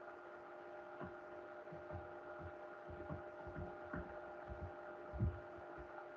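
Faint steady electrical hum made of several fixed tones, with soft irregular knocks and taps of a stylus writing numbers on a tablet.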